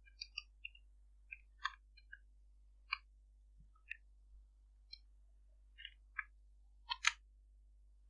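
Computer keyboard being typed on: faint, irregular single key clicks, about a dozen in all, with a louder pair of clicks near the end.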